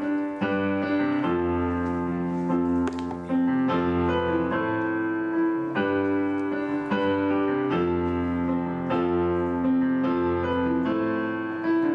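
Electronic keyboard played with a piano sound: held chords over a low bass, changing about once a second.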